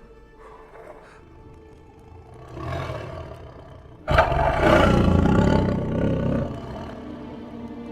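Lion roaring over background music: a shorter roar about two and a half seconds in, then a sudden, loud roar at about four seconds that lasts about two seconds.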